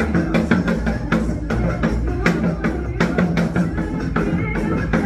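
Music with steady drumming: a janggu (Korean hourglass drum) played along to a backing track of a Korean song, with evenly spaced drum strokes over sustained accompaniment.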